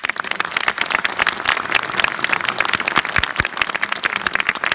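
Audience applauding: many hands clapping, starting suddenly and holding steady.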